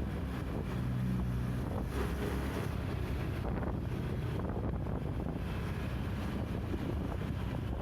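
Steady engine rumble of a moving road vehicle, with wind buffeting the microphone.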